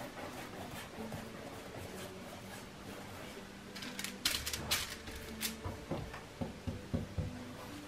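Wide flat paintbrush scrubbing acrylic paint onto canvas in soft scraping strokes. About four seconds in, sharp crinkling as the brush is worked in paint on a foil palette.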